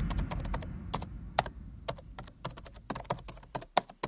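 Computer keyboard typing: quick, irregular key clicks, over a low rumble that dies away in the first second.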